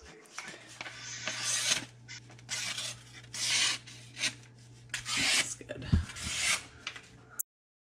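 Marttini fillet knife slicing through a sheet of paper in about six short rasping strokes, a test of the blade's sharpness.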